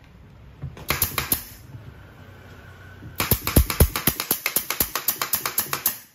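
Pneumatic nail gun driving fasteners into the wooden panels of a subwoofer cabinet. A few shots come about a second in, then a rapid, even run of about nine shots a second for nearly three seconds.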